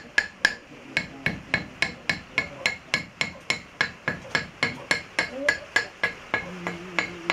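A metal blade chipping at the edge of a stone slab for a Xê Đăng stone lithophone (đàn đá), in quick, regular strikes about three or four a second. Each strike gives a short, high ring from the stone.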